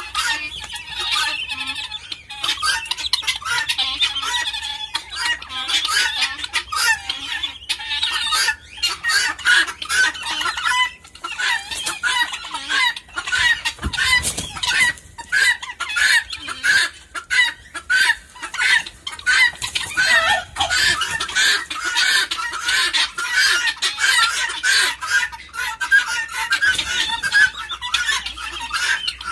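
A flock of helmeted guineafowl calling: rapid short notes from many birds, overlapping without a break.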